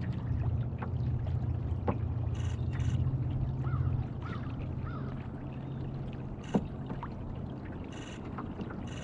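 Steady low hum of a kayak's electric trolling motor and water along the hull, a little louder for the first four seconds. Several short high-pitched chirps and three small rising-and-falling notes sound over it.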